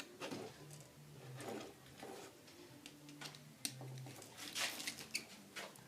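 Faint scattered clicks and scrapes of electrical wires being worked into a neutral connector block and fastened, with a few sharper clicks about three and a half to five seconds in.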